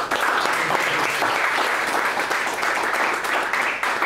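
Audience applauding, the clapping starting suddenly and holding an even level throughout.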